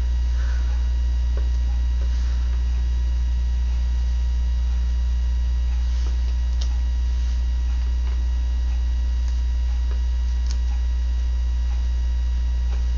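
Steady, loud low electrical mains hum in the recording, unchanging throughout, with a couple of faint small ticks partway through.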